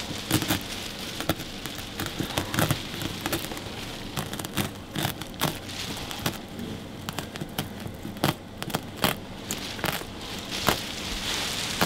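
Wall-to-wall carpet being cut with a utility knife and pulled back from the floor: dense, irregular crackling and tearing as the backing comes away.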